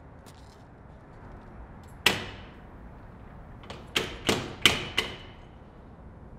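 A locked glass shop door clunking against its lock as it is pulled: one sharp clunk about two seconds in, then a quick run of four or five rattling clunks with a short metallic ring.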